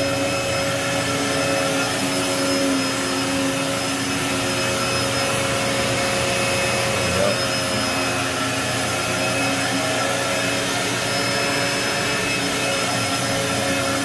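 Vacuum cleaner running steadily: a constant motor hum with several steady pitched tones over the rush of airflow.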